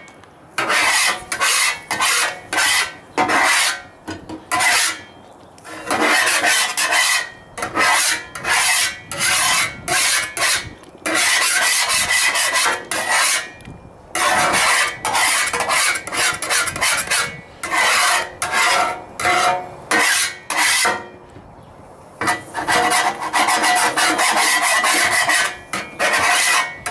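Metal griddle scraper scraping the hot, wetted steel top of a Blackstone 17-inch propane griddle, in runs of quick back-and-forth strokes with brief pauses, clearing off cooked-on residue.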